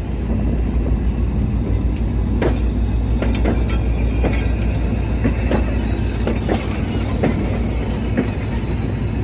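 G22W-AC diesel locomotive running with a steady low engine rumble, with about eight irregular sharp metallic clanks over it from about two seconds in.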